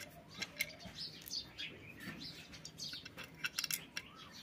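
Small birds chirping repeatedly, over light metallic clicks of nuts and washers being handled and fitted onto the bolts of an electric iron's base, with a quick cluster of louder clicks about three and a half seconds in.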